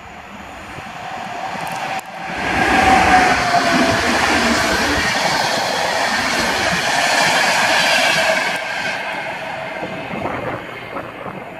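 EU44 Husarz electric locomotive hauling a rake of Intercity passenger coaches, passing at speed. It rises as it approaches, jumps to a loud rush of wheel-and-rail noise about two seconds in that holds for about six seconds as the coaches go by, then fades as the train moves away.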